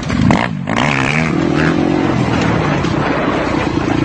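Kawasaki dirt bike engine revving hard under throttle, its pitch rising and falling, starting loud and suddenly.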